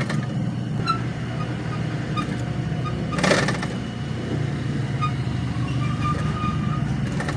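Steady low rumble of a vehicle engine, with a brief noisy burst about three seconds in.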